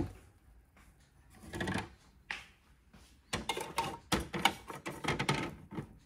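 Irregular clicking and clattering of a stainless steel milk jug being handled and set under a coffee machine's milk spout, a couple of knocks about two seconds in and a busier run of clatter in the second half.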